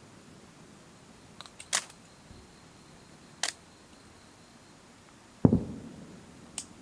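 A firework shell bursting overhead: one loud, deep boom about five and a half seconds in that rolls away over a second or so. A few short, sharp clicks come before it and one just after.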